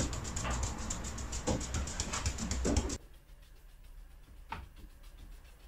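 Light, quick swishing strokes of a badger-hair softener brush over wet grey glaze, softening out brush and cloth marks. The swishing stops about three seconds in, leaving a quiet room with a single short click.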